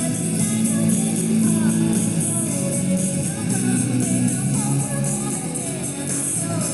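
Music with a continuous tambourine-like jingle over low sustained notes.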